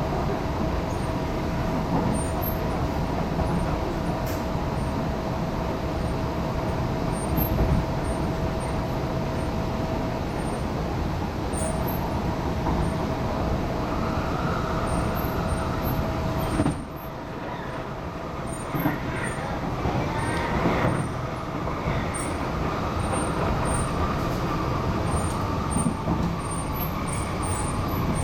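MTR East Rail R-Train electric multiple unit heard from inside the carriage while running: a steady rumble with a constant whine. About 17 s in the rumble drops suddenly, and whining tones from the traction equipment shift in pitch over the next few seconds.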